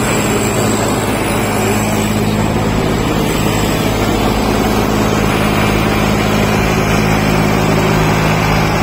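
Solis tractor's diesel engine idling with a steady, unchanging note.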